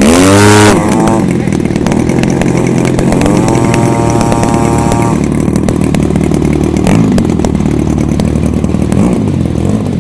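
110cc engine of an aerobatic RC model plane running loud. Its pitch falls in the first second, climbs about three seconds in to a high steady whine, drops back a couple of seconds later, then swings up and down again twice.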